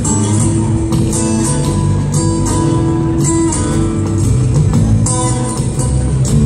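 A live band playing in a concert hall, heard from the audience: guitar over bass and drums, with held guitar notes and steady drum hits.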